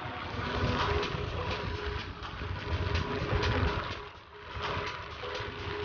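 Rumble of a moving vehicle with wind buffeting the microphone, broken by many short crackles, easing briefly about four seconds in.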